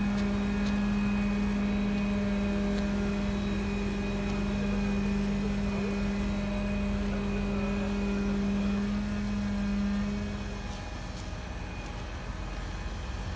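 Mobile crane's engine and hydraulics running steadily under load while hoisting, with a strong even hum. About ten seconds in the hum stops and the sound drops to a lower engine rumble.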